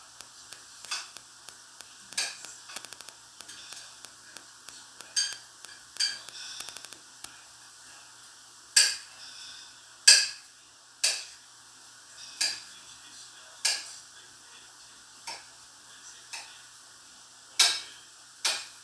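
Kitchen utensils clinking and scraping against dishes and a pot in sharp, irregular clinks about once a second, with a couple of quick rattling runs.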